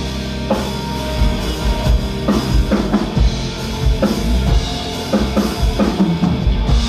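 Live band playing an instrumental break in a pop-rock song: drum kit with bass drum and snare keeping a steady beat under held chords.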